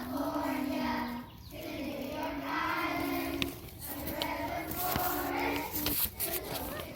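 A group of young children singing a song together in unison, in phrases of held notes.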